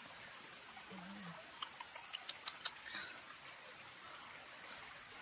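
Forest insects keeping up a steady high drone, with a few light clicks and ticks between about one and three seconds in.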